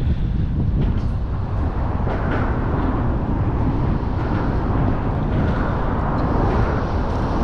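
Steady wind rumble buffeting the microphone, with a hiss of open-air surf noise above it.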